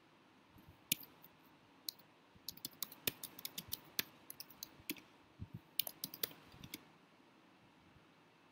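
Typing on a computer keyboard: a run of irregular key clicks that starts about a second in and stops about seven seconds in.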